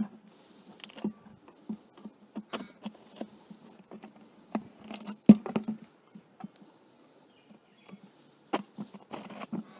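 Knife cutting old drawn beeswax comb out of a wooden frame, with pieces of comb breaking away by hand: irregular crackles and scrapes, with one louder knock about five seconds in.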